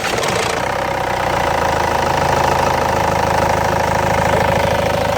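Ford Transit 2.0 TD diesel engine idling steadily just after a cold start. There is a brief knock and rustle from the timing chain as it catches, which is the sign of a stretched chain that the tensioner is not taking up properly.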